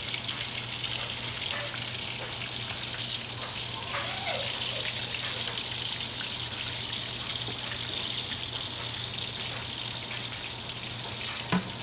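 King mackerel steaks frying in hot oil in a pan: a steady sizzle with fine crackling and a low hum underneath. A single sharp click near the end.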